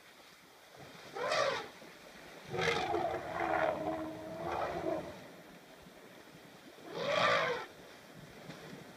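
African elephants calling: a short trumpet about a second in, then a longer wavering call lasting a couple of seconds, then another short trumpet near the end.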